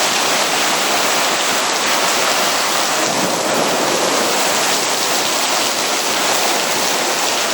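Torrential rain pouring down steadily, a dense even rush of noise with no let-up.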